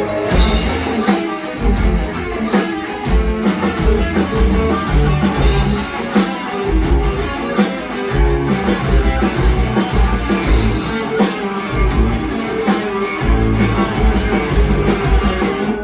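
Live rock band playing an instrumental passage: electric guitar over a steady drum-kit beat with bass drum and cymbals.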